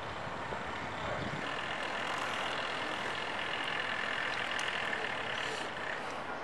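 City traffic noise: a steady hum of road vehicles, with a steady high whine from about a second and a half in that fades near the end.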